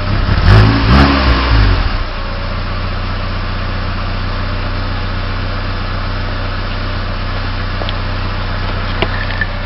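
1996 Saturn SL2's 1.9-litre four-cylinder engine through its stock exhaust, revved briefly a few times in the first two seconds, then settling to a steady idle.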